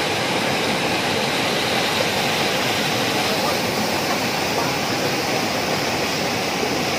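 Stream water rushing steadily over rocks, whitewater rapids churning through a narrow rock channel.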